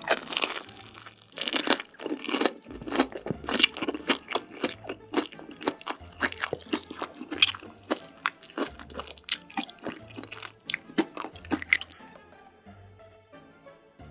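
Close-miked crunchy eating: bites and chewing with dense crackling crunches, stopping about twelve seconds in, over background music with a low bass line.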